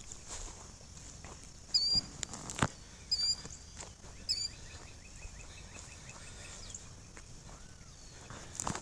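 A bird giving four or five short, sharp calls a second or so apart, over a steady high insect hiss.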